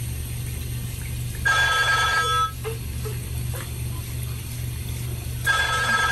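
A telephone rings twice, each ring about a second long and about four seconds apart, over a steady low hum.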